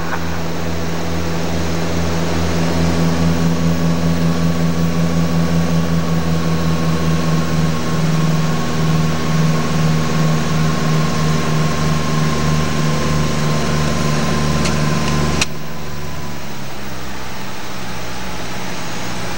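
Light airplane's engine and propeller droning steadily in the cabin, with an even pulsing beat and a faint high whine. About three-quarters of the way through, a sharp click comes and the drone drops to a slightly quieter, smoother level.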